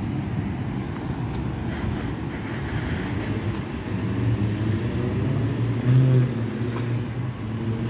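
Road traffic: a steady low rumble of passing vehicles, with a deeper engine drone swelling about four seconds in and loudest near the sixth second.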